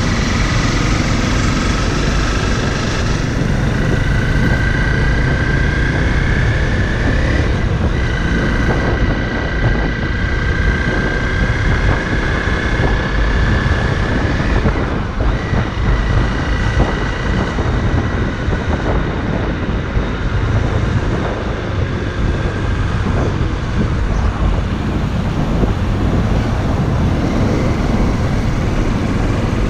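Honda CRF motorcycle running under way, with wind rushing over the microphone. A high whine rises slowly in pitch from a few seconds in until about halfway through.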